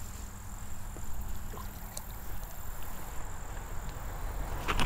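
Low rumbling outdoor noise on the camera microphone under a steady, high-pitched insect drone, with a few light clicks and one sharper click near the end.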